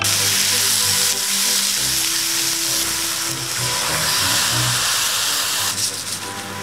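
Cherry tomatoes and shimeji mushrooms sizzling hard in a hot frying pan as liquid is poured in. The sizzle starts suddenly and eases off near the end.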